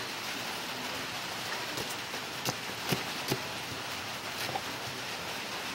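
Steady rushing hiss, like rain, throughout, with a few sharp clicks of a kitchen knife cutting through pineapple, three close together about halfway in and one fainter near the end.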